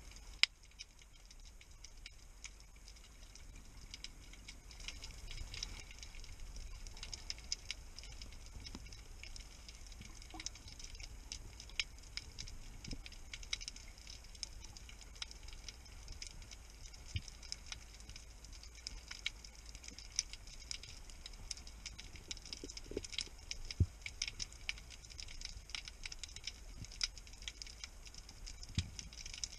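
Underwater reef crackle: a dense, steady patter of small sharp clicks, the typical sound of snapping shrimp and other reef life, over a low rumble of water.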